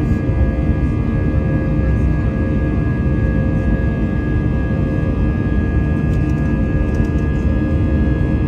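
Airliner's underwing turbofan engines at climb power, heard inside the cabin: a steady low rumble with several steady whining tones over it.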